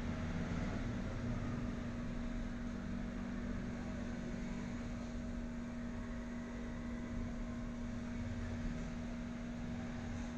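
Steady background hum with a constant low tone over an even hiss, unchanging throughout, with no distinct knocks or clicks.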